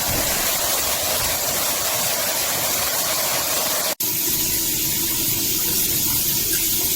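Water spraying steadily from a rainfall shower head, an even loud hiss of falling water. It cuts out for an instant about four seconds in and carries on with a slightly duller sound.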